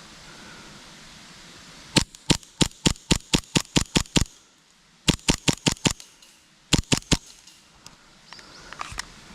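Airsoft gun firing in three quick strings of sharp cracks, about five shots a second: a long string of about eleven, then about seven, then three.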